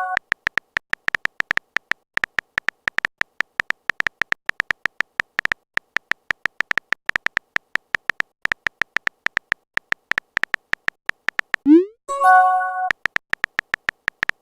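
Phone keyboard typing sound effect: a rapid run of short tapping clicks, each with a faint beep, for about twelve seconds. Near the end a quick rising swoosh and a short electronic chime sound, a message-sent alert.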